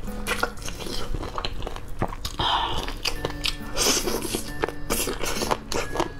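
Wet biting and chewing of sauce-covered chicken feet, with many short sharp clicks, over background music.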